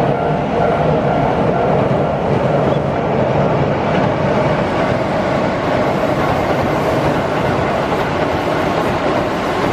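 Keihan electric train crossing a steel railway bridge: a loud, steady noise of wheels on rails and the bridge's ironwork.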